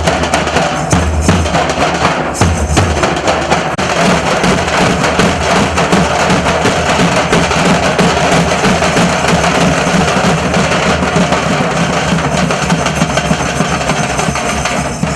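Nasik dhol drum troupe playing a loud, dense, fast rhythm, deep drum beats under sharp cracking strokes.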